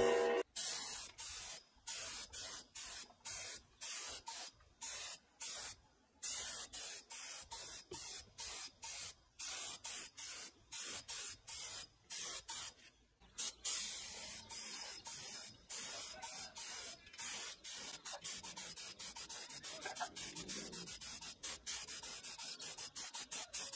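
Short hissing bursts of pressurised spray, one after another, about two a second.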